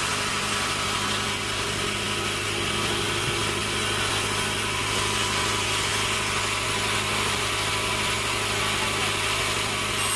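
Sawmill machinery running steadily with a constant low hum, between cuts.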